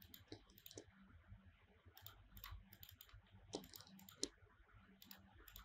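Faint, irregular clicks of a computer mouse and keyboard keys.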